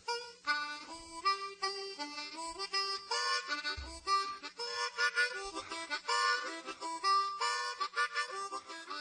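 Background instrumental music: a melody of short, quickly changing notes over an accompaniment.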